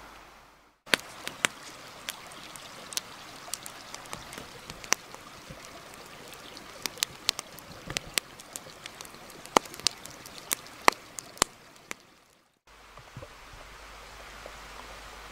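Wood campfire crackling, with many sharp irregular pops from the burning logs. Near the end it gives way to a steady hiss of light rain.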